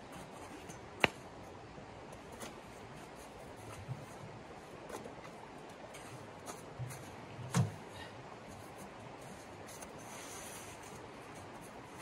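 Steady rush of a shallow creek, with a sharp click about a second in and a few softer clicks and knocks after it, then a dull thump about two-thirds through, from camp gear being handled.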